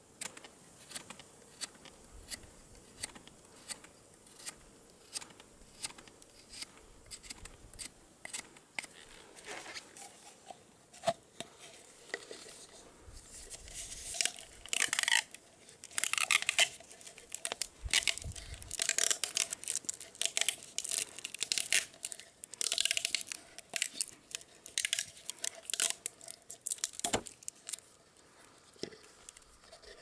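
Knife blade shaving a wooden stick in short strokes, about one a second. From about halfway, louder crinkling and crackling of a thin plastic bottle as it is twisted and pushed onto the wooden stick.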